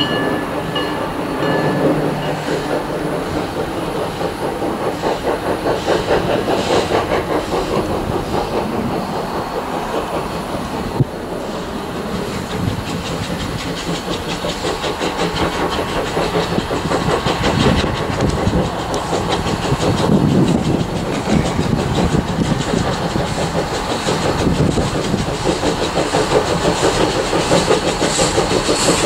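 Steam locomotive hauling a passenger train at low speed, running with a steady rhythmic clatter of wheels on the rails and a hiss of steam.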